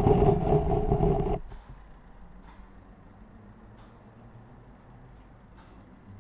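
Loud car sound with a steady pitch that stops suddenly about a second and a half in, leaving faint low street hum.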